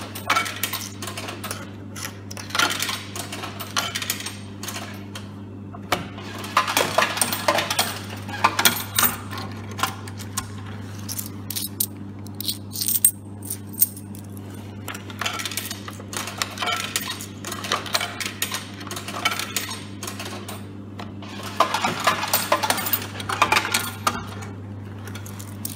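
50p coins clinking through a vending machine's coin mechanism and dropping into the change-return cup, in several bursts of metallic clatter. A steady low hum runs underneath.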